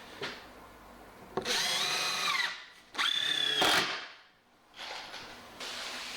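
Handheld power drill run twice in short bursts, about a second and then just under a second, each motor spinning up and winding down.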